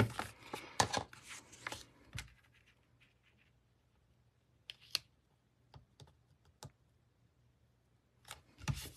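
Light taps, clicks and paper rustles from sheets of cardstock and patterned paper being handled on a desk. They are busiest in the first two seconds and again near the end, with a few single clicks in the quiet middle.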